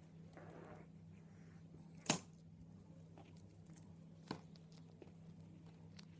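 A cat playing: a brief soft rustle near the start, then a sharp knock about two seconds in and a smaller one two seconds later, with a few faint clicks, over a steady low hum.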